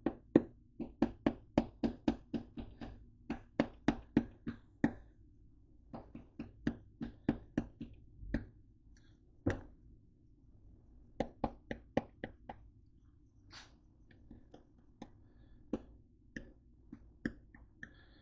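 Plastic spice shaker of ground cinnamon being shaken with quick jerks, giving runs of sharp taps about three or four a second, then a few scattered taps near the end.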